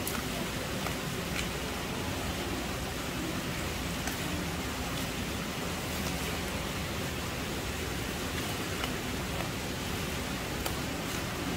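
Steady, even hiss of background noise with a few faint, sharp clicks scattered through it.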